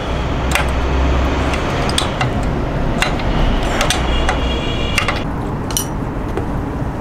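A wrench clinking against the front exhaust flange bolt as the old bolt is loosened and taken out: a scattering of sharp metallic clicks over a steady low rumble.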